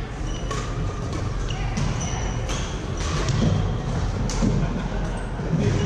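Badminton rackets striking shuttlecocks across several courts: sharp cracks at irregular intervals, about one every half second to a second, with brief high squeaks of court shoes and a steady din echoing through a large hall.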